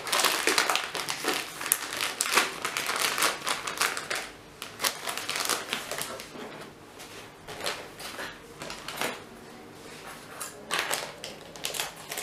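Plastic food packaging crinkling and rustling as it is handled, with many light, irregular clicks and taps; busier in the first few seconds and again near the end, quieter in between.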